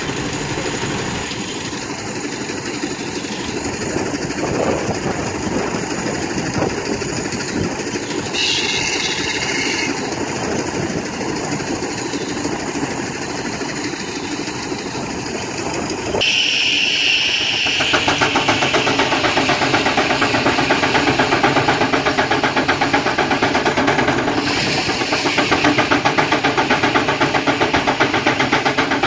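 Sawmill machinery with a large circular blade running steadily. About 16 s in the sound changes abruptly to a steam traction engine driving a long flat belt, its exhaust beating in a fast, even rhythm.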